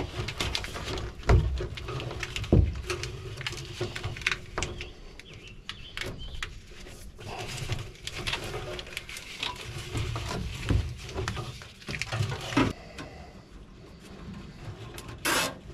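Hands working corrugated plastic wire loom and trailer wiring into place under a truck bed: scattered rustling, scraping, clicks and a few knocks, with a short loud rasp near the end.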